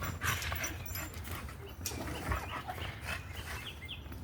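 English bulldog tugging and pulling on a small tree, leaves and twigs rustling as it strains, with the dog's own short vocal noises mixed in.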